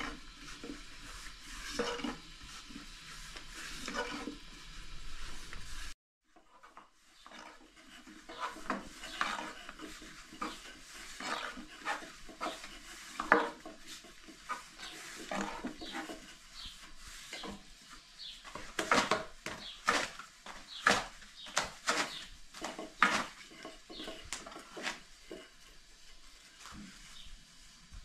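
Long thin wooden rolling stick knocking and rubbing against a round wooden board as thin flatbread dough is rolled out, in quick, irregular taps and scrapes. The sound cuts out briefly about six seconds in, and the knocks come thicker and louder in the second half.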